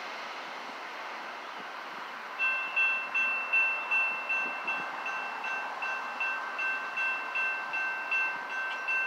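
Railroad crossing bell ringing in an even run of two-tone dings, about two to three a second, starting a couple of seconds in and slowly getting softer, as the crossing gates rise after the train has cleared. Before it comes a steady fading noise from the departing light-rail train.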